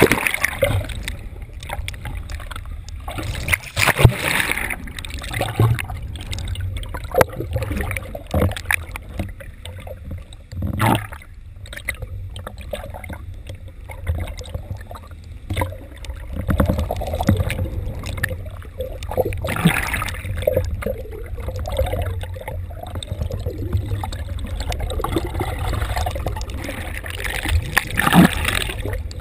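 Water sloshing and gurgling around a camera held just under the sea surface, heard muffled underwater: a steady low rumble with scattered knocks and splashes, and a few louder surges of churning water.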